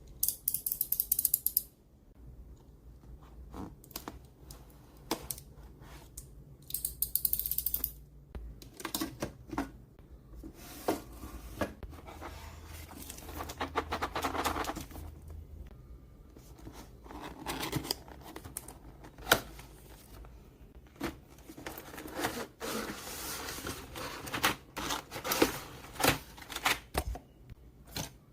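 Plastic keycaps and their packaging being handled: brief bursts of rapid clattering near the start and about seven seconds in, then scattered clicks and knocks with stretches of rustling.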